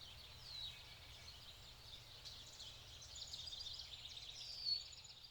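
Faint birdsong: songbirds chirping and twittering, with a short falling whistle about half a second in and a louder whistle near the end, over a low steady background rumble.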